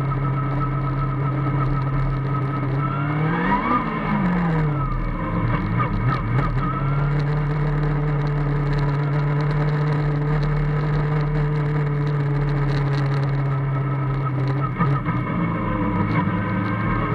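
Formula Student race car's engine running at a steady speed while the car cruises. It revs up and falls back in steps about four seconds in, and dips then rises again near the end.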